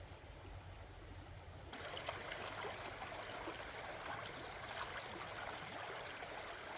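Flowing stream water, a steady rushing hiss. About two seconds in it turns abruptly brighter, with small clicks and splashes.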